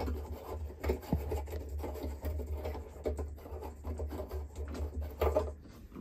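A light bulb being unscrewed by hand from a ceiling light socket: a continuous scratchy rubbing with small clicks as the screw base turns in the socket, over a low handling rumble. The rubbing stops shortly before the end.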